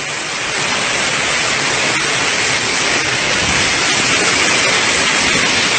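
Waterfall: a steady rush of falling water, heard up close.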